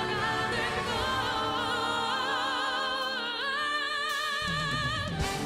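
Operatic-style solo singing with long notes held with vibrato over musical accompaniment; the voice moves to a new note about three seconds in.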